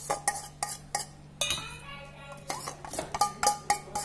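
A steel spoon scraping and clinking against a steel bowl and pot, knocking wet spice paste out of the bowl. Quick sharp clinks with a short metallic ring, easing off for about a second midway, then resuming.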